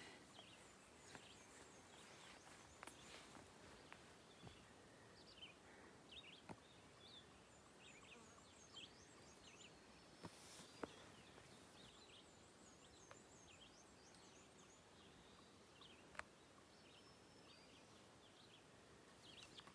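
Near silence: the outdoor quiet of a windless hillside, with scattered faint, high bird chirps and short trills and a few soft clicks.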